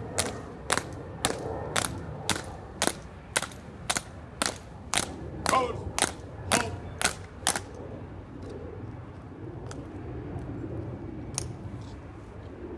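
A color guard's hard-soled shoes striking a stone plaza in step as they march, a sharp click about twice a second at marching cadence. The steps stop about two-thirds of the way through as the guard halts, and one more click comes near the end.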